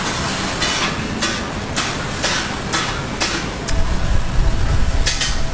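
Egg batter sizzling on a hot flat steel griddle as it is poured, in short hissing bursts over steady street-stall background noise. A low rumble comes in about four seconds in.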